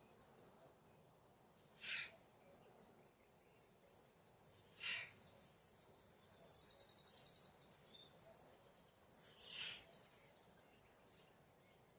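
Unidentified bird calling: short single notes about every three to five seconds, with a quick high trill of rapid repeated notes lasting about a second in the middle. Faint over a quiet outdoor background.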